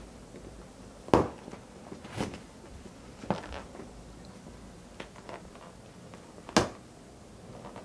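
Taut vinyl of an inflated pool toy being squeezed and jabbed with a pin, giving a few sharp knocks and crackles among smaller clicks, the loudest about a second in and near the end; the toy does not burst.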